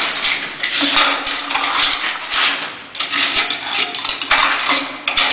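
Hand trowel scraping over the rim of a metal compacting-factor test cylinder in a series of short, repeated strokes, grating and clinking as it levels off and trims the excess fresh concrete.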